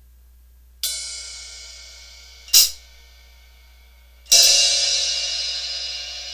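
Cymbal crashes in a music soundtrack: a crash about a second in that rings and slowly dies away, a short, sharp cymbal hit around two and a half seconds, and a louder crash a little past four seconds that rings on.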